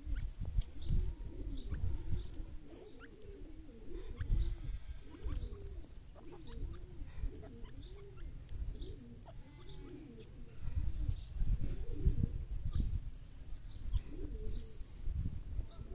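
Birds calling: a near-continuous run of soft, low, wavy cooing notes, with short high chirps scattered over them. Bursts of low rumble come and go underneath.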